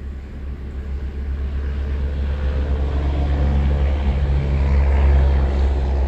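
A 2011 Suzuki SX4's 2.0-litre engine idling with the A/C compressor engaged and the blower running, a steady low drone that grows louder toward the end. The compressor is running with a resistor standing in for the failed evaporator temperature sensor.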